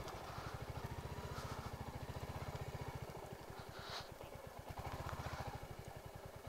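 Motorcycle engine running at low road speed on a rough dirt track, with an even low pulsing exhaust beat. The beat slows and softens about three seconds in as the throttle eases, and a short hiss from the tyres or mud comes about four seconds in.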